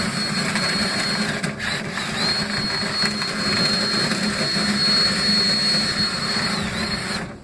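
Dryer-vent cleaning tool motor running steadily, a high whine over a rushing, humming noise; the whine briefly drops out about a second and a half in, then comes back.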